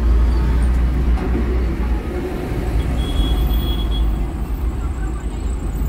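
Car driving along a city road: a steady low rumble of engine and road noise. A brief high steady tone sounds for about a second around three seconds in.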